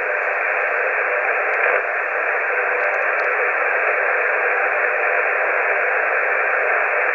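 CB radio receiver on the 11-metre band giving out a steady, even hiss of band noise through its speaker, thin and narrow in tone, with no voice coming through.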